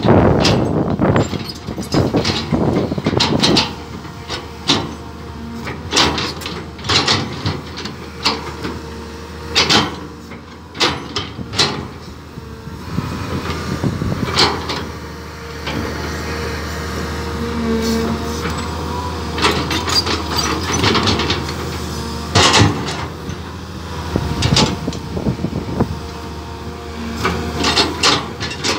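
Caterpillar hydraulic excavator's diesel engine running steadily as the bucket digs into dry soil. Frequent irregular knocks and scrapes come from the bucket and its linkage.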